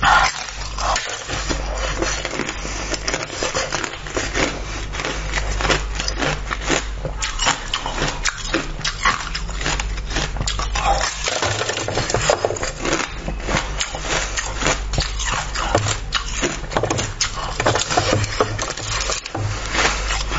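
Close-miked eating sounds: biting and chewing a clear, seed-filled sweet, with a dense, uneven run of small wet crackles and crunches, over a steady low hum.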